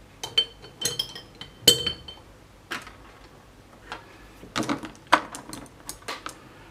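Paintbrushes being sorted through by hand to find a size 0 brush: a series of sharp clicks and clinks, some with a short ringing tone. The clicks come in two clusters, the first near the start and the second in the latter half.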